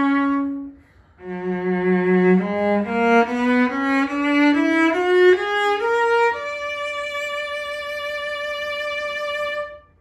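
1928 E.H. Roth cello from Markneukirchen played with the bow: a held note fades out under a second in, then after a short pause a low note leads into a run of notes stepping upward. It ends in a long, quieter held high note that stops just before the end.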